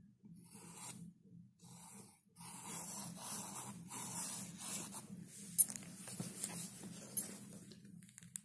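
Pen scratching across sketchbook paper shaded with soft pastel: a few short strokes, then near-continuous drawing strokes, with two sharp ticks in the second half. A steady low hum runs underneath.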